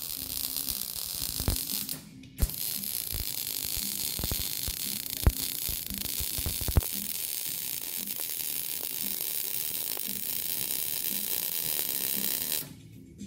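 MIG welder arc crackling and hissing as a bead is laid along a joint in a car exhaust pipe, with scattered sharp pops of spatter. The arc stops briefly about two seconds in, then runs steadily until it cuts off near the end.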